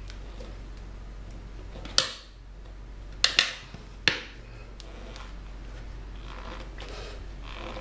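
Sharp clacks of metal tire-changing rods against a motorcycle wheel rim as the tire is pried off: four knocks, two of them close together about a third of the way in, each ringing briefly.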